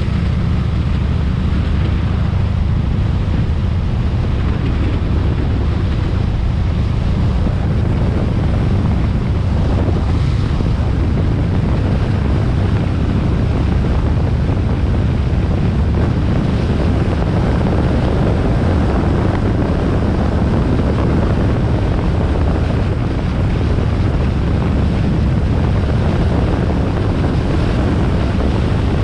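Harley-Davidson Sportster XL1200R's air-cooled V-twin engine running steadily at cruising speed, mixed with heavy wind rush on the microphone.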